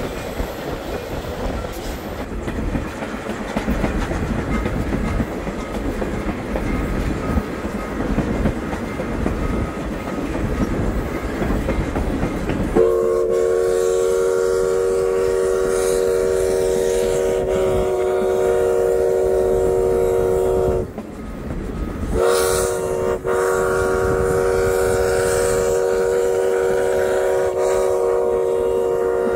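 U.S. Sugar steam locomotive No. 148's train rolling along the track, then the locomotive's steam whistle blowing two long blasts, several notes sounding together, with a short break between them about 21 seconds in.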